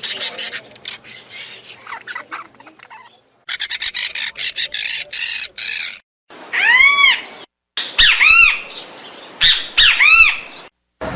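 Several birds chirping in short, spliced recordings, with quick high chirps in the first half broken by abrupt cuts to silence. In the second half come three louder calls, each rising and falling in pitch, about a second and a half apart.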